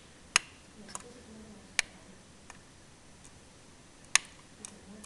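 A run of about seven sharp, short clicks at uneven spacing, roughly one every half second to a second, over a faint low murmur.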